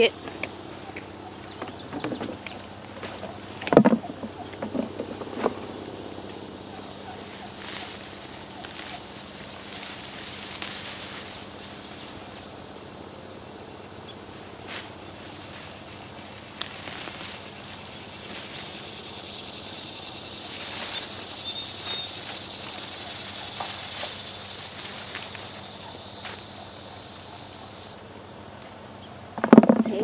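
Steady high-pitched chorus of insects, with a few short knocks in the first several seconds, the loudest about four seconds in, and faint rustling as dead potato vines and straw are pulled by hand.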